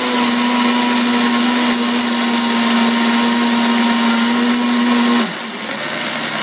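Vitamix blender running with a Wildside container, churning a thick mix of frozen fruit and orange juice, with a steady high motor hum over the noise of the blades in the jar. About five seconds in, the pitch drops and it gets quieter as the motor slows.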